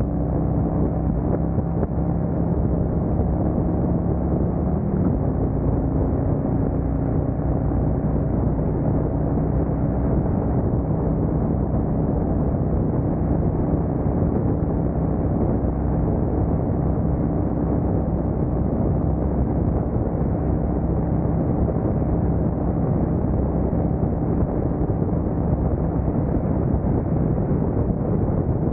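Harley-Davidson Street Glide Special's Milwaukee-Eight 114 V-twin running steadily at highway speed, with wind noise on the microphone. The engine note shifts about five seconds in.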